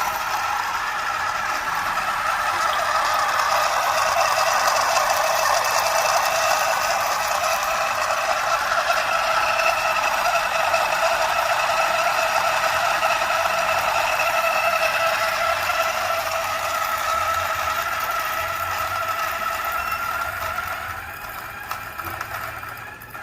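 G64 single-dose grinder's 64 mm flat burrs grinding a dose of coffee beans at the lowest speed setting (step 1 of 10), so it grinds rather slowly. The steady grinding noise starts suddenly as the beans reach the burrs and thins out near the end as the last of the dose goes through.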